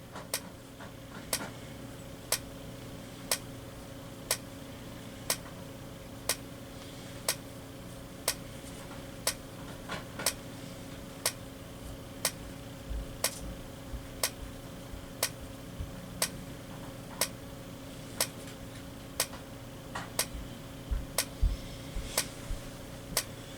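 Simplex TrueAlert strobes flashing in sync with their horns silenced: each flash gives a sharp tick, about one a second, with extra ticks in the second half. A steady low electrical hum runs beneath.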